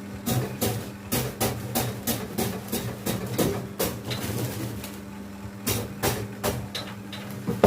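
Spot welding machine joining steel wire: a quick series of sharp snaps, about three a second, over a steady electrical hum. The snaps pause for about a second partway through and then resume, and one loud snap comes near the end.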